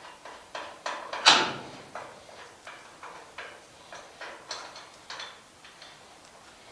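Irregular clicks and knocks of hand tools at work on a vehicle, with one louder clank a little over a second in.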